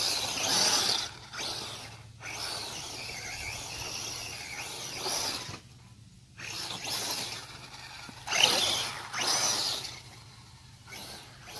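Losi Baja Rey RC truck's electric motor whining up and down in bursts of throttle, with the hiss of its tyres through grass. There are short lulls about two and six seconds in, and the loudest burst comes about eight and a half seconds in.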